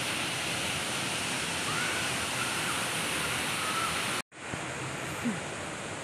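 Steady rushing of a waterfall, which cuts off abruptly about four seconds in and gives way to a quieter, duller steady hiss.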